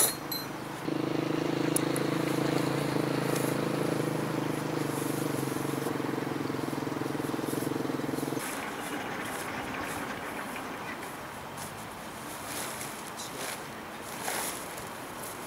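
A sharp click, then a vehicle engine running at a steady pitch for several seconds that cuts off abruptly about eight seconds in. After it, tent fabric rustles and crackles as a tent is unrolled and spread out.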